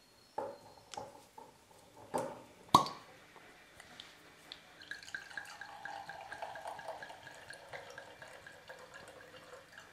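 A wine bottle being uncorked: a few short knocks, then a sharp pop about three seconds in as the cork comes out. From about five seconds in, red wine glugs and splashes from the bottle into a glass.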